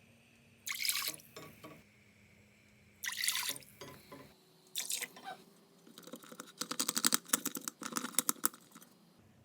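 Water pouring and splashing in three short bursts, then a quick run of drips and splashes lasting a few seconds.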